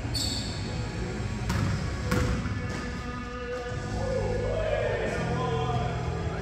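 Music with singing plays, while a basketball bounces on a gym court twice, about one and a half and two seconds in.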